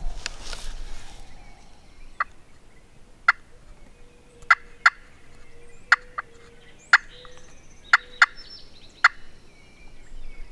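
Turkey calling: about ten short, sharp notes spaced irregularly over several seconds. A brief rush of noise comes at the start.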